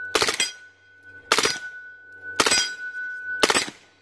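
CMMG MK9 9mm AR on full auto, fired through an AAC Tyrant 45 suppressor with 147-grain subsonic ammunition: four short bursts of a few rounds each, about a second apart.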